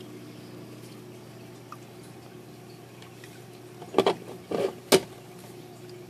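Steady low hum of a small aquarium pump, with several fixed tones. About four seconds in, three short loud noises close by; the last is a sharp click.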